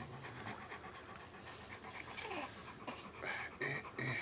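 A dog panting steadily. A few short, louder sounds come near the end.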